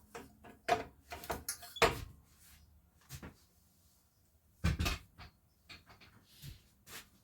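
Scattered knocks and clicks of small objects being handled and set down, loudest about two seconds in and again just before five seconds.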